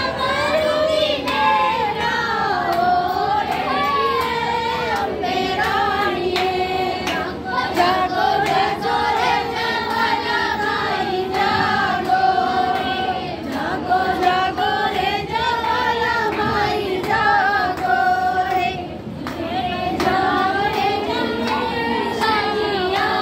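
A crowd of devotees singing a devotional chant together in unison, one woman's voice close by, with rhythmic handclaps running through it.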